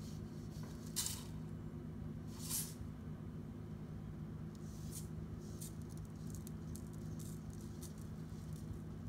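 Potassium nitrate stump-remover granules poured from a glass bowl into a plastic cup, making short hissing trickles; the two loudest come about one and two and a half seconds in, followed by fainter patters. A steady low hum runs underneath.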